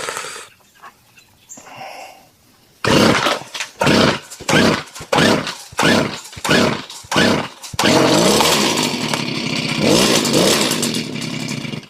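Poulan Weed Eater PE550 edger's small two-stroke engine being pull-started on half choke: a quick run of sputtering bursts, then it catches about eight seconds in and runs continuously, its pitch rising and falling.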